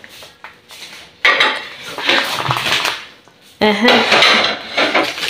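Dishes and cutlery clattering in two spells, the first starting suddenly about a second in and the second starting a little after the halfway point.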